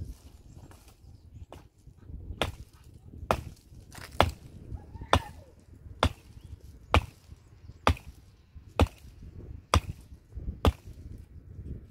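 Wood being chopped with steady, evenly spaced blows, about one a second, starting a couple of seconds in: around ten sharp strikes.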